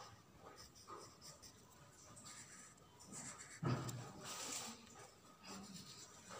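Crayon scratching on drawing paper as a circle outline is traced in black. A little past the middle comes a thump and a rustle as the sheet is shifted and turned.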